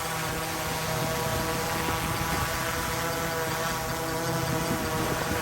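DJI Mavic 3 drone's propellers humming steadily in flight, several steady tones together, over wind noise on the microphone.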